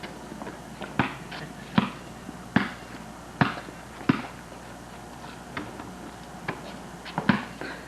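Basketball being dribbled, five bounces at a steady pace of a little more than one a second, then a few softer, uneven bounces.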